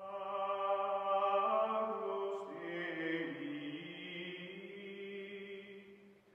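Choral chant music: voices holding long sustained notes that shift in pitch about two and a half seconds in, then fade out near the end.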